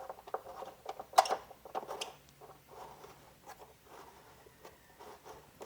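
Scattered light clicks and taps of parts being handled, with one sharper, louder click about a second in.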